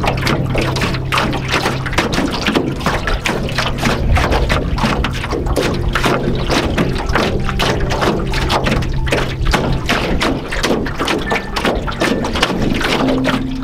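Small choppy waves lapping and slapping against the hull of an aluminum canoe in a quick, irregular run of splashes and light knocks. Held low music chords sound underneath and shift near the end.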